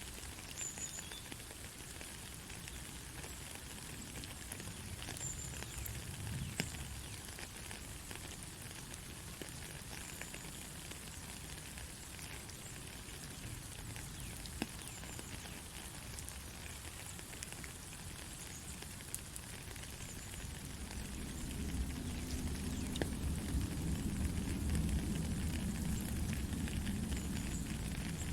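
Steady rain with scattered sharp drop clicks. About three-quarters of the way through, a low rumble of thunder builds and rolls on, louder than the rain.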